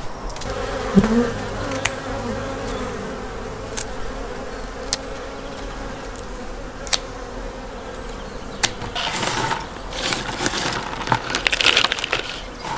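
Honeybees buzzing steadily, with several sharp snips of pruning shears cutting dry twigs. Near the end, a rustle of the cut twigs being gathered into a plastic bucket.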